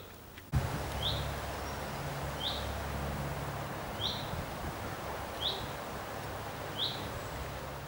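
A single bird repeating one short, sharp, high call five times, about every second and a half, over steady outdoor background noise with a low rumble that grows louder about half a second in.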